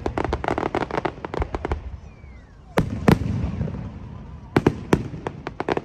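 Diwali fireworks going off in a rapid string of sharp bangs. There is a brief lull about two seconds in, then two loud bangs about three seconds in, and another quick run of bangs near the end.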